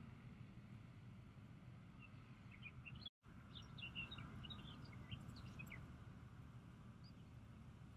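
Faint outdoor birdsong: scattered short chirps from small birds, most of them bunched together in the middle, over a low steady background rumble. The sound cuts out completely for a moment about three seconds in.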